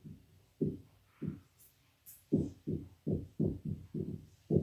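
Dry-erase marker writing on a whiteboard: a run of short, dull strokes, about a dozen, coming closer together from about two seconds in.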